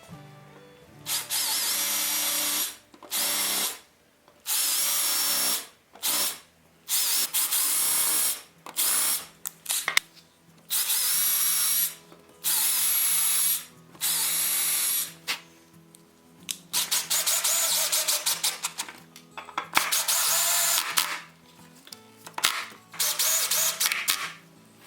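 Electric power tool cutting wood, switched on and off in about a dozen short bursts of a second or so each, with a longer, choppier run partway through, over background music.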